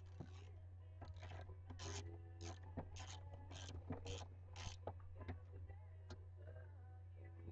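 A ratchet wrench worked in short rasping strokes, about two a second, while bolts on a lawnmower's blower housing are tightened. A steady low hum runs underneath.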